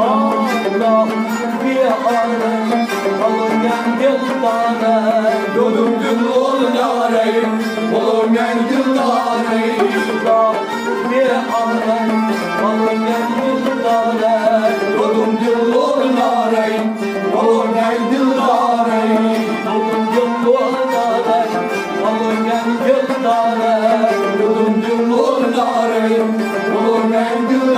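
A Kashmiri Sufi song performed live: a harmonium holding a steady drone and melody, a bowed sarangi, and a man singing over them, with percussion keeping time.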